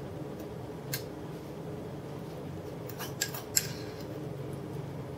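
A utensil scraping and tapping guacamole out of its tub onto a bowl of salad: a few short sharp clicks, one about a second in and a quick cluster around three and a half seconds in, over a steady low hum.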